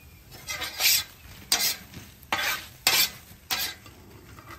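Metal spatula scraping across a Blackstone griddle's steel top, about five separate strokes roughly two-thirds of a second apart, as seasoned potato wedges are tossed and scooped up.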